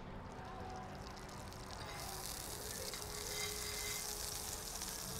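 Oil, butter and saved animal fat starting to sizzle in a hot cast iron pan, a steady hiss that sets in about two seconds in.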